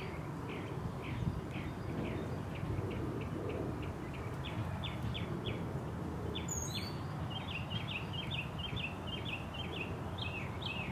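Young chicken chicks (Rhode Island Red, Barred Rock and Buff Orpington) peeping: a continuous run of short, high, falling chirps, several a second, growing quicker and busier in the second half.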